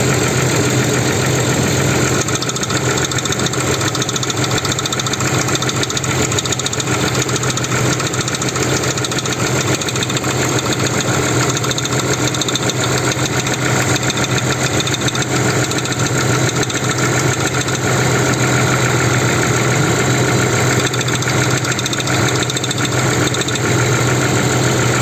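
Jeep Grand Cherokee ZJ engine idling steadily with a fast, even crackling knock that seems to come from between the engine and the gearbox, near the starter.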